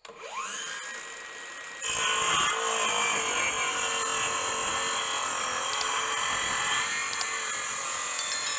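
Makita CS002G 40V cordless metal-cutting circular saw spinning up with a rising whine, then biting into metal about two seconds in and cutting steadily, louder and harsher than at free spin.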